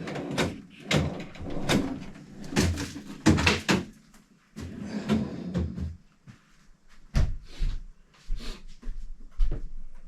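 Irregular knocks and clatter, like cupboard doors and utensils being handled while coffee is made in the galley, with several sharp bangs.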